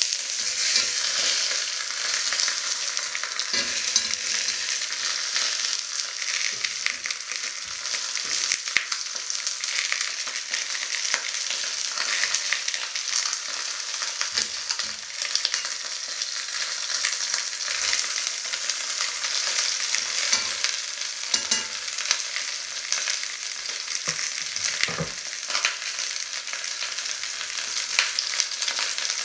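Chicken legs frying in hot fat in a cast-iron pot: a steady sizzle with crackles, and a few knocks as the pieces are turned and moved.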